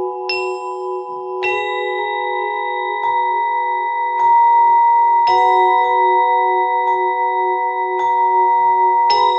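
Solo percussion with electronics: mallet strikes on the marimba's bars, roughly one a second, over a steady, sustained chord. The struck notes ring on with a bell-like shimmer.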